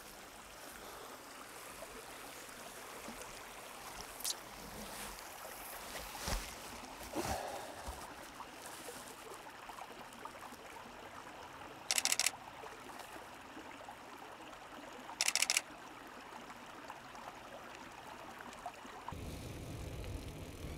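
A stream running steadily, with two short bursts of camera shutter clicks about three seconds apart in the middle. Near the end, a low rumble of wind and tyres begins as the bicycle sets off.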